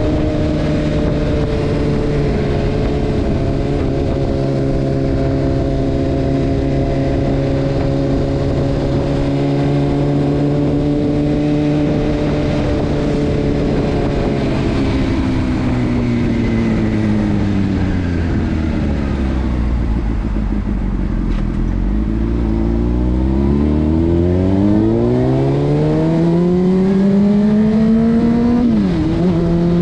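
Honda CBR600RR's inline-four engine running at a steady pitch for about half the time, then falling slowly to a low pitch as the bike slows, then rising steadily again as it accelerates, with a brief dip in pitch near the end.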